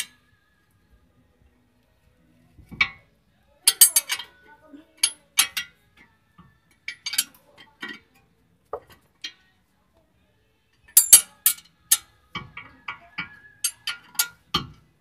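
Steel wrench clinking against the ball-joint nut and the suspension hardware while the nut on the lower control arm is loosened: clusters of sharp metal clinks, the busiest spell in the last few seconds.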